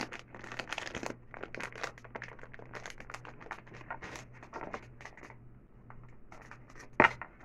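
Plastic packaging crinkling and tearing as a sponge's wrapper is worked open by hand: a run of irregular crackles, with one sharper, louder click near the end.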